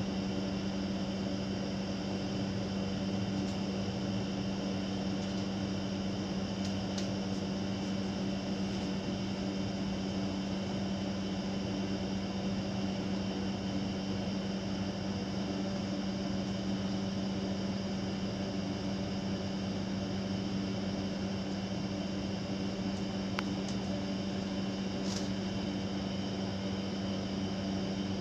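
Steady mechanical hum with a constant low tone, unchanging throughout, typical of a room air conditioner or fan running.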